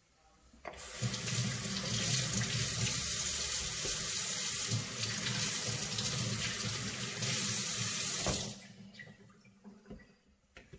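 Kitchen tap running into a stainless steel sink as peeled carrots are rinsed under the stream. The water comes on about a second in and shuts off after about eight seconds, followed by a few light knocks.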